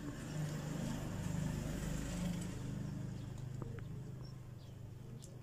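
A motor vehicle's engine hum swells over the first two seconds or so and then slowly fades, as of a vehicle passing by.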